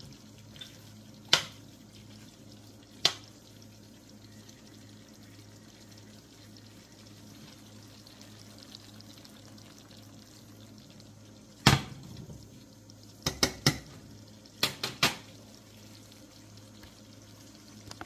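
Metal tongs clinking against a stainless-steel skillet as cooked cabbage is tossed: a few single sharp clicks, then a quick run of clicks about two-thirds of the way through. A low steady hum sits underneath.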